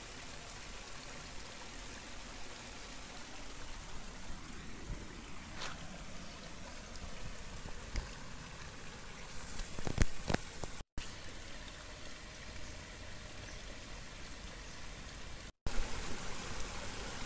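Steady rushing of a river's flowing water, with a few faint clicks, cutting out briefly twice near the middle and toward the end.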